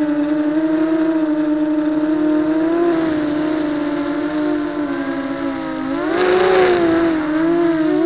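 ZMR250 racing quadcopter's brushless motors and propellers whining, heard close from a camera on the craft. The pitch holds fairly steady, dips a little about five seconds in, then rises sharply with a rush of air about six seconds in as the throttle is punched, and settles back.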